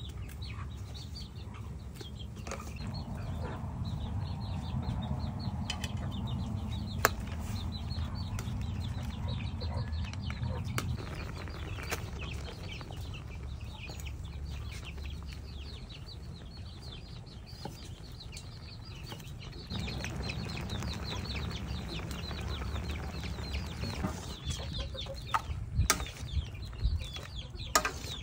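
Shrimp broth boiling hard in a wide wok over a wood fire, with a steady low rumble and dense bubbling crackle. Chickens cluck in the background, and a few sharp metal clinks come near the end as a ladle works in the wok.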